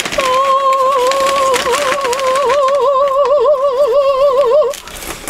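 A woman singing one long held note, a mock-operatic flourish, with a vibrato that grows wider toward the end; it stops about half a second before the end.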